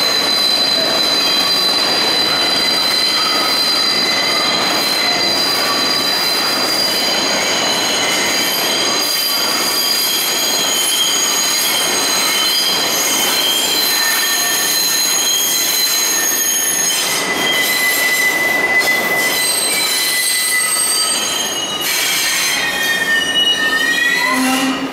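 Steel wheels of a New York City subway train squealing as the train runs through the tight loop curve at South Ferry, a loud, steady, high-pitched squeal of several tones at once. Near the end the squeal tones fall in pitch as the train slows.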